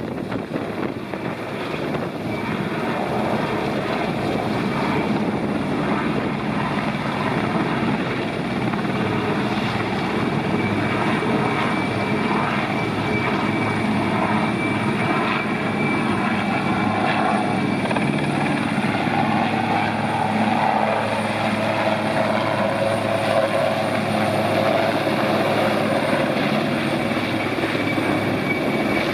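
A Royal Navy AgustaWestland Merlin helicopter, with three turbine engines, hovering low and air-taxiing close by. There is a steady high turbine whine over the rush of the rotor wash, and the rotor beat stands out more plainly in the middle.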